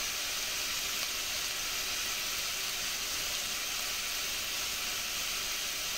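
Pork loin, carrot and onion sizzling in oil in a pot: a steady, even hiss.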